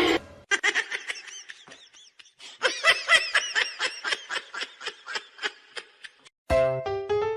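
A rapid run of short, high-pitched giggles, a few a second, that stops about six seconds in. Keyboard music starts just after.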